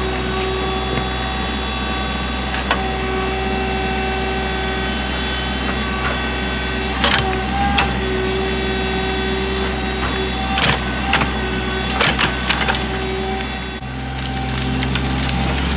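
Excavator engine running steadily with a whine that comes and goes under load, while wood cracks and snaps several times in the second half as a tree is torn out by its roots.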